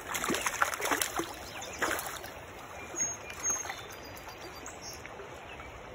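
Water splashing as a hooked brook trout is brought to hand at the surface, over the steady rush of a shallow stream. The splashes are heaviest in the first two seconds, with a couple of smaller ones about three seconds in.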